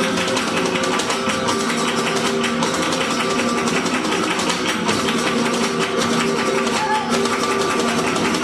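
Live flamenco music in the soleá form: flamenco guitar playing, with a dense, steady run of sharp percussive clicks over the notes.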